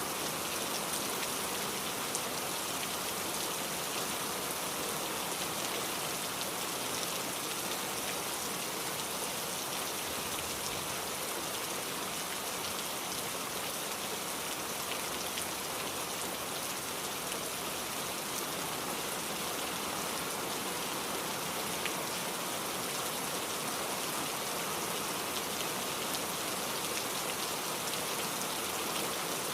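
Steady rain falling and pattering on a surface, an even hiss of many drops with no change in intensity.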